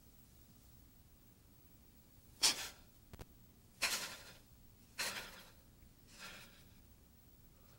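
Sharp, forceful breaths from the people doing the Tensegrity movements: four short breaths about a second and a quarter apart, the last one fainter, with a brief click between the first two.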